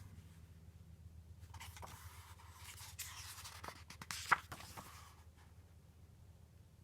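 Paper rustling as a page of a picture book is handled and turned, with a few light clicks and one sharper tick about four seconds in.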